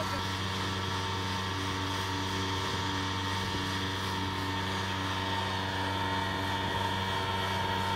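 Tractor-drawn slurry tanker working steadily, a constant low engine hum, with the hiss of water jets from its Castle Agri Trio swivel spreader.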